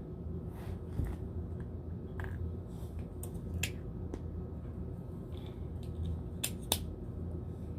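Small plastic accessory capsules being handled and opened, giving scattered sharp clicks and taps, a few close together near the end, over a steady low hum.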